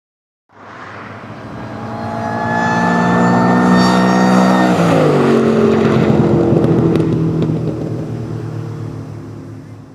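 Supercharged 2006 Ford Mustang GT's 4.6-litre V8 with an M90 Roushcharger, through long-tube headers and a performance exhaust, accelerating with its engine note and a high supercharger whine slowly rising. It comes in about half a second in and grows louder, drops sharply in pitch about five seconds in, then holds a lower note as it fades away.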